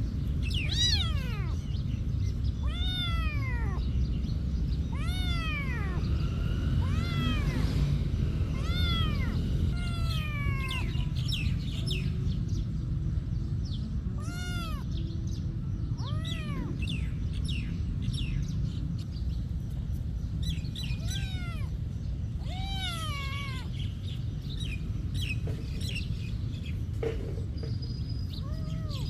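Cats meowing again and again: short calls that rise and fall in pitch, one every second or two, sometimes overlapping, over a steady low rumble.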